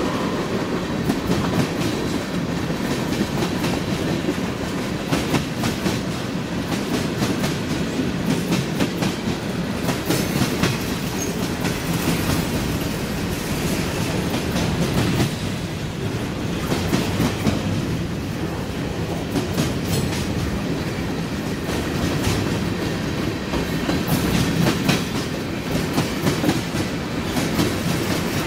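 Freight cars of a long mixed train rolling past: a steady rumble of steel wheels on rail, with repeated clicks as the wheels pass over rail joints.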